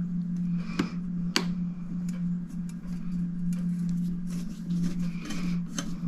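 Small irregular metallic clicks and taps of a screwdriver and clock parts being handled while a final screw is removed from a crystal regulator clock, over a steady low hum.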